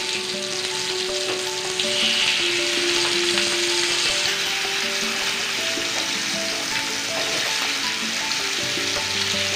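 Marinated murrel fish pieces sizzling hard as they shallow-fry in groundnut oil on a nonstick tawa while being turned with a spatula. The sizzle grows louder about two seconds in. Background instrumental music plays underneath.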